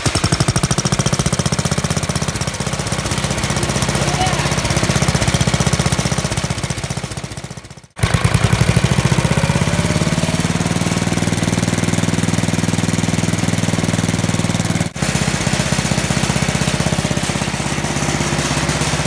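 8 hp Briggs & Stratton single-cylinder engine running steadily at idle, a fast even putter, its throttle wired to hold it at idle and its carburetor running without an air filter. The sound breaks off abruptly about eight seconds in and picks straight up again, with a brief dip near the end; to the owner it runs great.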